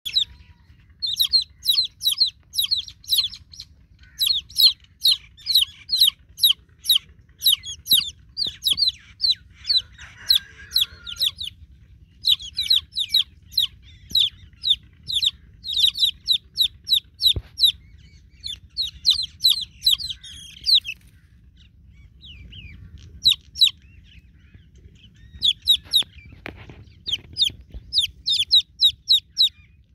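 Baby chicken chicks peeping loudly, several shrill falling peeps a second, in long runs broken by short pauses: newborn chicks' distress calls for the mother hen.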